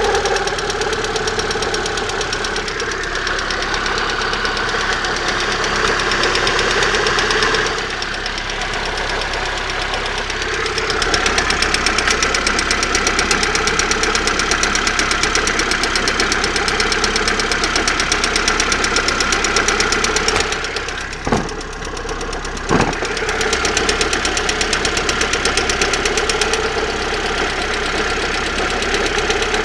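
Car engine running steadily with a fast, regular knock that the owner places near the exhaust manifold, cause unknown to him.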